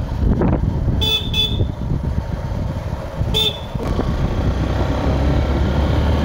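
Steady engine and wind rumble of a moving two-wheeler, with a horn tooting twice in quick succession about a second in and once more at about three and a half seconds.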